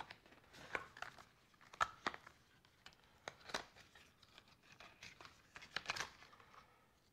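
Packaging being handled: irregular rustling and crinkling with light clicks as small accessories, a power adapter and cables, are lifted out of a cardboard box's moulded tray.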